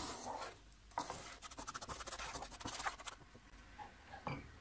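Wooden spatula scraping and stirring melted sugar around a nonstick pan in quick strokes, stopping about three seconds in. A light knock near the end.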